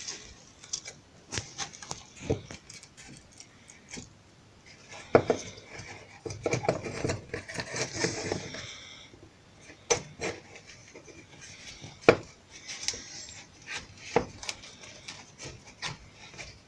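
Steel bar clamps being handled and tightened around a glued-up log box: scattered clinks of metal clamp parts and knocks against wood, with a denser stretch of rubbing and scraping between about five and nine seconds in.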